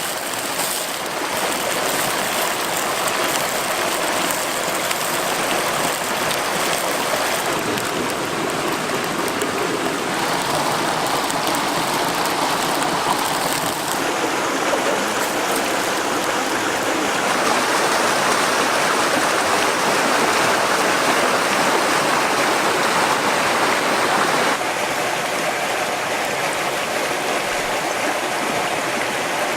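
Flowing stream water, a steady rushing that changes abruptly in tone a few times.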